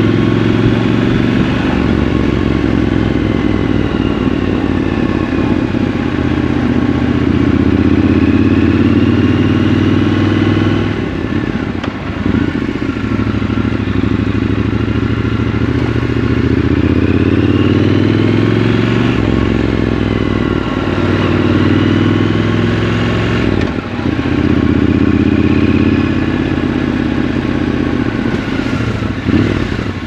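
Triumph Scrambler motorcycle engine heard from the rider's seat, pulling through city riding. Its pitch climbs several times and drops back at the gear changes, with brief dips in level at the shifts.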